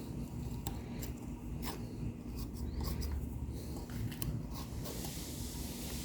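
Scattered light scraping, rubbing and small clicks as plastic wood putty is pressed and molded into gaps and screw holes in a wooden door jamb.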